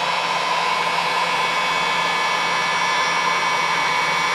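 Handheld electric heat gun blowing steadily, a constant whir with a whine in it.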